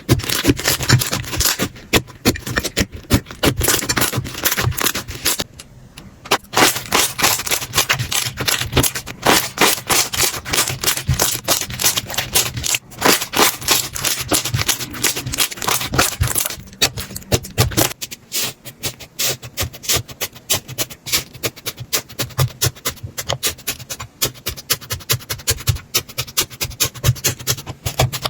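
Slime being squeezed and pressed by hand, giving a dense run of quick crackling and popping clicks; about two thirds of the way through the sound turns lighter, with less low thud under the clicks.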